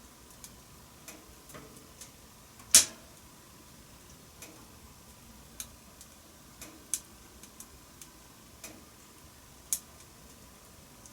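Wood fire crackling in a wood-burning stove: scattered sharp pops and snaps at irregular intervals, the loudest about three seconds in.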